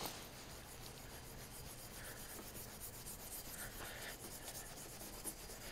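Steel wool scrubbing a wet, rusty steel pipe as rust loosened by a vinegar soak is rubbed off. It is a faint, continuous rasping rub made of many quick strokes.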